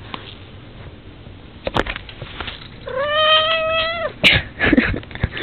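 Domestic cat giving one long, whiny meow about three seconds in, rising at the start and then held level for about a second. Sharp knocks come before it, and louder ones follow straight after.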